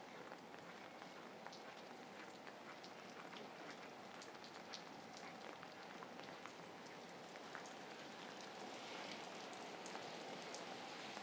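Faint, steady rain falling on wet ground, with scattered single drops pattering; it grows a little louder near the end.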